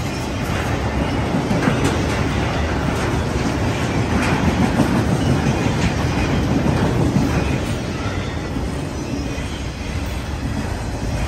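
Freight cars of a passing train rolling by close up: a steady rumble of steel wheels on the rails, with clicking over rail joints.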